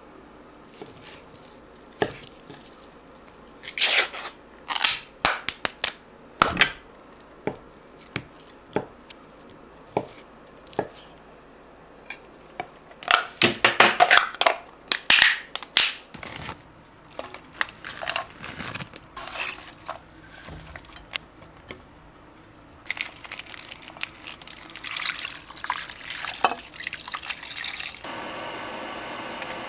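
Kitchen food-prep sounds: scattered taps and clatters of a knife, wooden cutting board and dishes as sliced sausage, ham and Spam are handled and put into a pot, with some dripping liquid. A steady hum sets in near the end.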